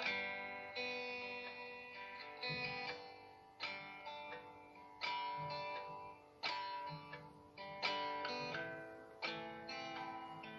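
Background instrumental music of plucked guitar-like strings, each phrase struck sharply and fading before the next.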